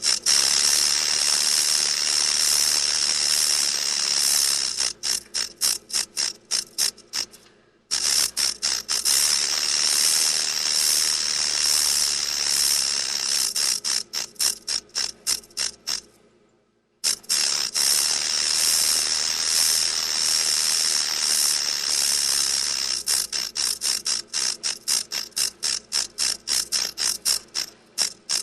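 Rattlesnake shaking its tail rattle: a loud, continuous high buzz in three long bouts. Each bout breaks up into separate clicks that slow down before the rattle stops, and the bouts are separated by short pauses, one about eight seconds in and one about sixteen seconds in.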